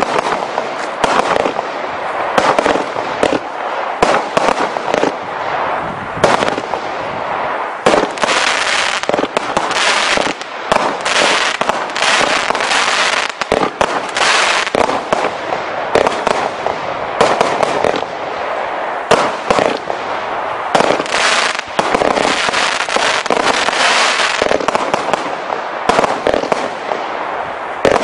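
Triumph consumer firework cake firing a rapid run of shots: repeated sharp launch thumps and bursts every second or so, over a continuous crackling hiss from the burning stars.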